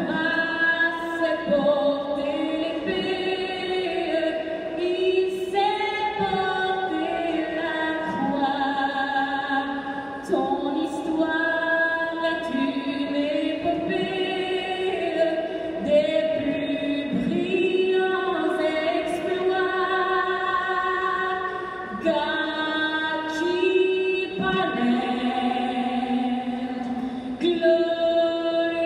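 National anthem sung a cappella in a hockey arena: slow, held sung notes with no instruments and no beat.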